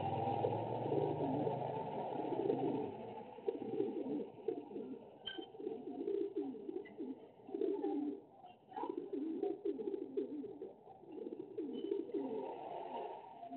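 Pigeons cooing in repeated rhythmic phrases. A passing motorbike's engine fades out over the first couple of seconds.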